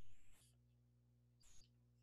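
Faint squeak of a felt-tip marker drawn across paper in the first half-second, then a brief second faint squeak about a second and a half in; otherwise near silence with low hum.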